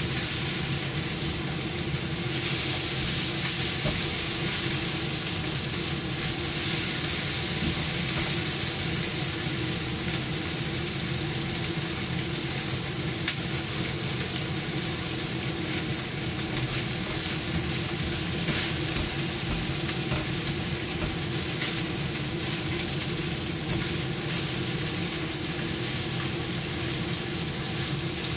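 Marinated chicken pieces sizzling steadily in hot oil in a nonstick frying pan, with a few light ticks of the spatula and chopstick against the pan. A steady low hum runs underneath.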